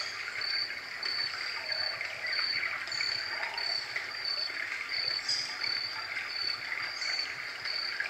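Roffie N600 white noise machine playing a nature-sound sample through its small speaker: a steady rushing hiss with a short, high chirp repeating about twice a second.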